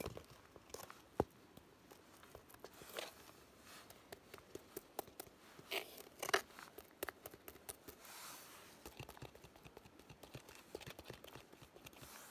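Wet, sand-caked hiking shoes being handled up close: scattered scrapes, crinkles and knocks of the shoe uppers and laces. There is a sharp knock about a second in and a louder cluster of scrapes around six seconds in.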